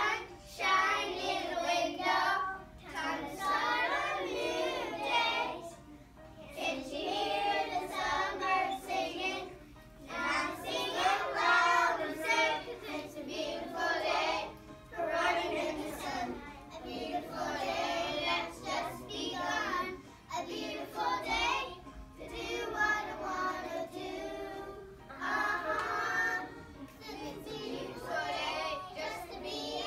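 A class of young children singing together, in phrases of a few seconds with short breaks between them.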